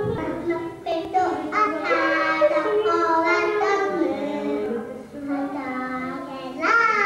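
A high voice singing long, wordless notes that slide up and down between held pitches, as part of the music.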